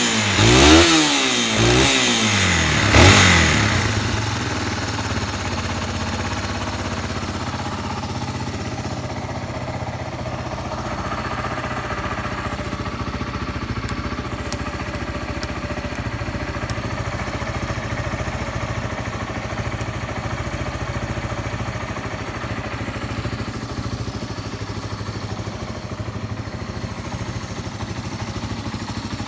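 Yamaha Serow 225's single-cylinder four-stroke engine, fitted with a Keihin PWK28 carburettor, blipped twice in the first few seconds, then settling to a steady idle. It runs quietly with no abnormal noise, as the seller describes it.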